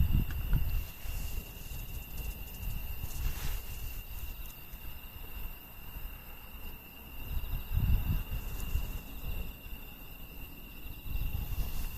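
Insects singing a steady, unbroken high trill. Low, uneven rumbling swells over it near the start and again around eight seconds in.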